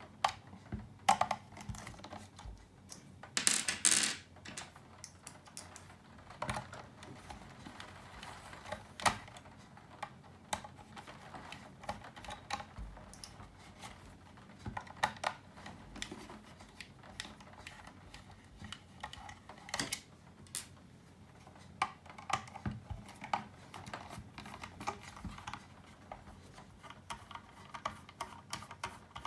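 Irregular small clicks, taps and light rattles of hands and tools working on the small plastic and metal parts of an amplifier being taken apart, with a louder scraping rattle about four seconds in.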